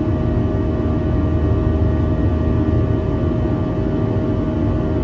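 Steady cabin noise of a jet airliner in flight: engine and airflow noise as an even low rumble, with a few held hum tones over it.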